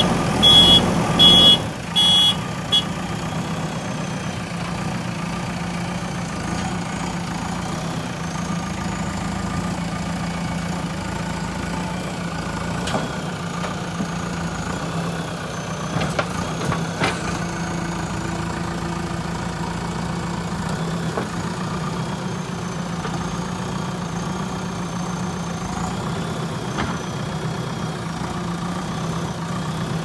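JCB 3DX backhoe loader's diesel engine running steadily at an even, low speed, with its reversing alarm beeping several times in the first couple of seconds. A couple of short knocks sound midway.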